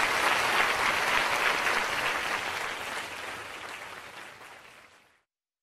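Audience applauding, fading out to silence about five seconds in.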